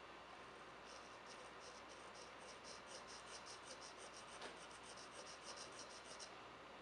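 Fountain pen nib scratching back and forth on the unglazed stoneware foot ring of an upturned coffee mug, a faint rapid run of short scratchy strokes, several a second, smoothing a scratchy nib. The strokes start about a second in and stop shortly before the end.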